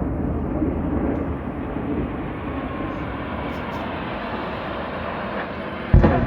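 Steady drone of an aircraft engine in flight, with a faint, slowly falling whine, broken about six seconds in by a sudden loud, low boom.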